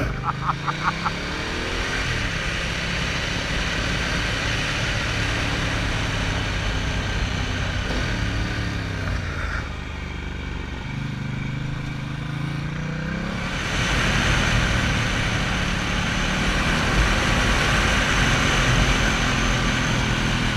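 Motorcycle engine heard from an on-board camera, its pitch rising and falling with the throttle and gear changes through a run of tight bends. About two-thirds of the way in it picks up speed and wind rush over the microphone grows louder.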